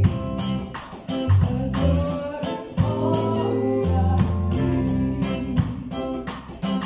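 Live band playing a song: voices singing over electric guitar, a deep bass line and a drum beat.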